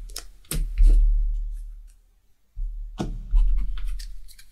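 Playing cards being handled on a table: scratchy sliding and a few light clicks, with two dull low thumps on the table about half a second and three seconds in, each fading over a second or so.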